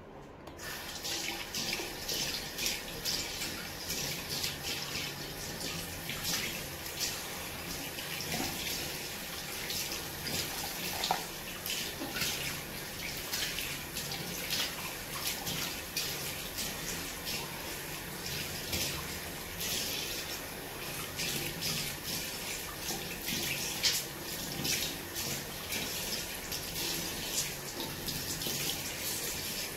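Tap water running into a sink with uneven splashing, coming on suddenly at the start.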